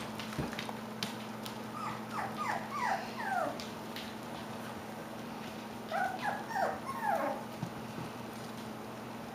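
A five-week-old puppy whimpering in two short runs of four or five quick, falling whines each, the runs about four seconds apart.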